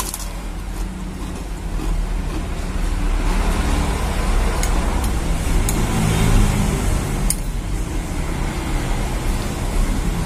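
A man eating a meal, chewing, with a few light spoon clicks on the plate in the middle, over a steady low background rumble.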